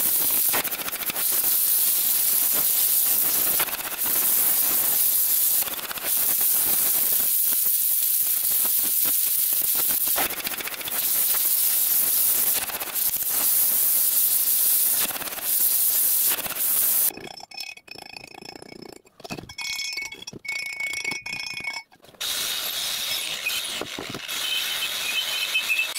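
Gas torch flame hissing steadily as it heats the rusty steel of an old tram rail, the hiss dipping briefly every few seconds. About two-thirds of the way through the hiss stops, giving way to quieter, irregular metallic ringing sounds.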